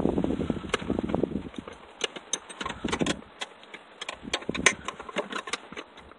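Hand tools clinking against metal: a flare-nut wrench tapping and knocking at the clutch master cylinder's brake-line fitting in a run of short, sharp metallic clicks, after about a second of shuffling and rustling.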